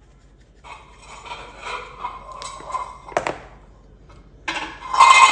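Dry seasoning shaken from a shaker onto raw baby back ribs, a rattling rustle in short bursts, with one sharp clink about three seconds in.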